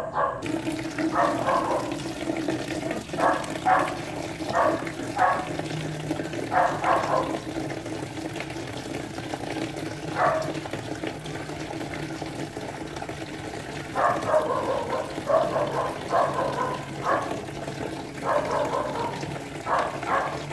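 Water running from an outdoor tap into a plastic basin, steady throughout, with short bursts of splashing that come and go as a puppy is bathed in it.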